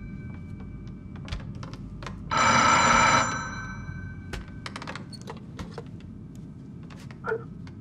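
Old wall telephone's twin electric bells ringing once, a loud burst of about a second, about two and a half seconds in. Then come a series of sharp clicks and knocks as the receiver is taken off its hook and lifted.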